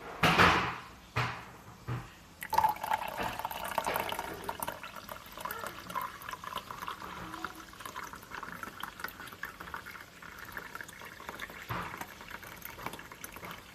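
A few knocks in the first two seconds, then water poured steadily into a Mr. Coffee coffee maker's water reservoir.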